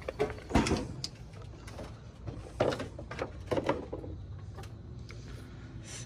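A handful of short knocks and clunks from a car battery being handled and settled in its tray, with its cable terminal clamps being moved about.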